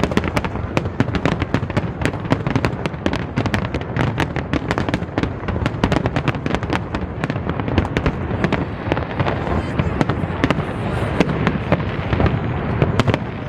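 Aerial fireworks display going off in a dense barrage: rapid sharp cracks and pops, many a second, over a continuous low rumble of shell bursts.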